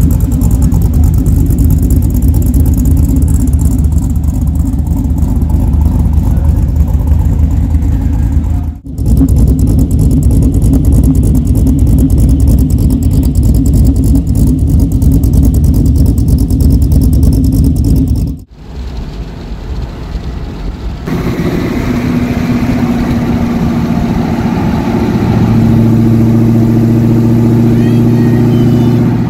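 The 5.3-litre LM7 V8 in a 1989 Chevy C1500, breathing through long-tube headers, a 2.5-inch equal-length dual exhaust with an X-pipe and Magnaflow Magnapack mufflers, running with a loud, deep, steady rumble at the side-exit tailpipes. After two cuts, the same truck is heard cruising on the road from a vehicle alongside, its exhaust a steady drone under wind noise.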